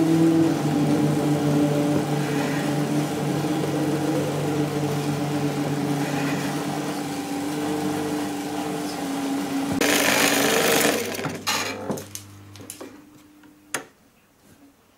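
Optikotechna Opefon 16mm film projector running, its mechanism chattering over a steady hum. About ten seconds in there is a burst of hiss, then the running sound dies away with several clicks as the projector's switches are worked.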